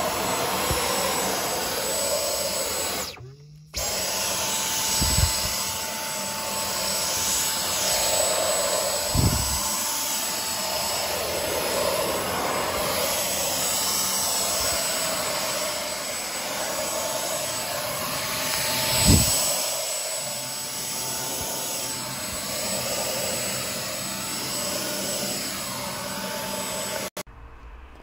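Dyson V10 Absolute cordless stick vacuum running with its soft dusting brush fitted: a steady rush of air under a high motor whine, dusting furniture. The sound breaks off briefly about three seconds in, and a few dull knocks come through.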